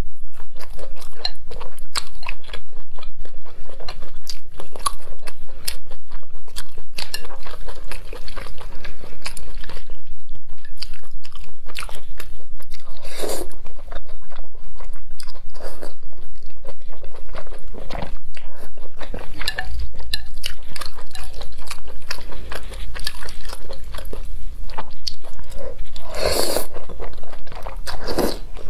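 Close-miked eating sounds: wet chewing and bites of grilled sausage, and slurping of wide sesame-sauce mianpi noodles, with a few louder slurps.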